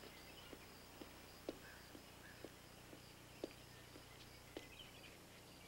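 Faint footsteps on stone paving and steps: short, soft ticks about twice a second.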